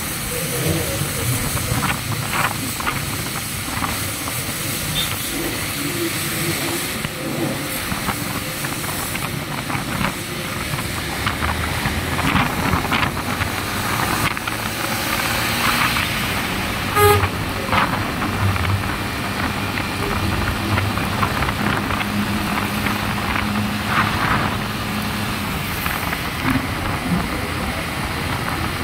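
Wind rushing over the microphone of a Yamaha motorcycle riding at speed on a wet road, with its engine running and tyre noise underneath. A brief horn toot sounds about seventeen seconds in.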